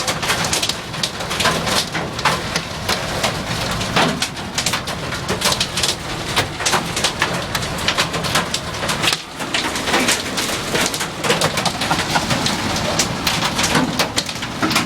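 Hail and heavy rain pelting a vehicle: a dense, irregular stream of sharp impacts over a steady downpour, heard from inside the cab.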